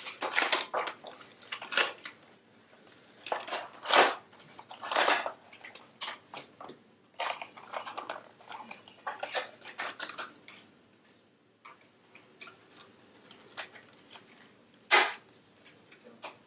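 Cardboard and plastic packaging being handled and opened: irregular rustling, crinkling and scraping, with a sharper crackle near the end.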